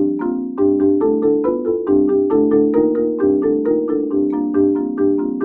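Marimba played with four mallets: a steady run of four-note chords struck about four times a second, the chord changing every few strikes.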